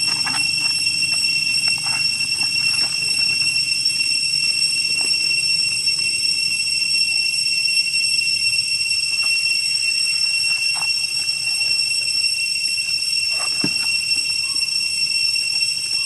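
Cicadas droning steadily, a high-pitched whine made of several even tones, with a few short faint clicks and rustles in dry leaves.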